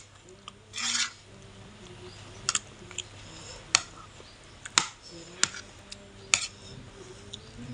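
A spoon clicking and scraping on a plate while someone eats, with a short scrape about a second in, then about six sharp clicks a second or so apart.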